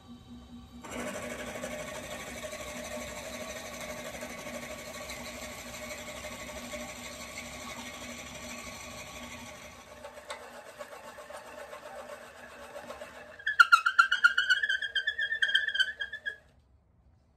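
Wood lathe running while a Forstner bit bores into the centre of an ash bowl blank. The sound starts abruptly about a second in. About 13 seconds in, a loud, pulsing squeak rises in pitch as the bit rubs in the wood, then everything stops about 16 seconds in.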